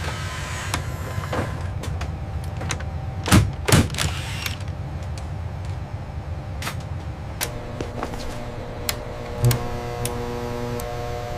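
Mechanical clicks and clunks over a steady low hum, with two louder knocks in quick succession about three and a half seconds in and another near the end. Sustained musical tones come in during the last few seconds.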